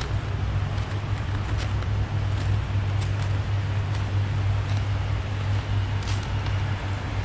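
Steady low rumble of road traffic crossing the concrete highway bridge overhead, with a few faint ticks.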